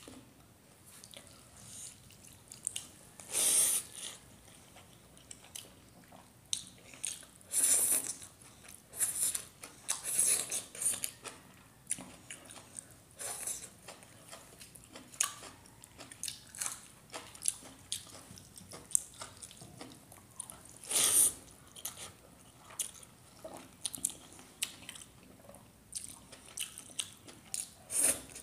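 Close-miked eating by hand: fingers mixing and scooping rice and cooked saag greens, then chewing and biting with the mouth close to the microphone, in irregular short bursts with a few louder ones.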